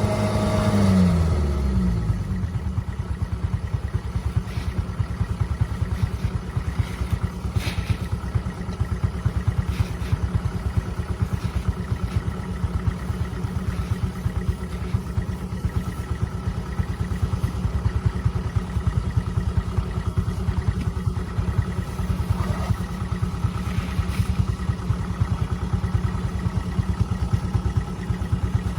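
Combine harvester engine: its pitch drops over the first two seconds, then it runs steadily with a rapid low pulsing and occasional faint knocks.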